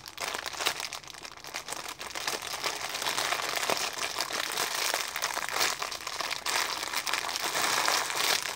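Clear plastic bag crinkling continuously as the squishy toy sealed inside it is gripped and turned in the hands, getting louder about three seconds in.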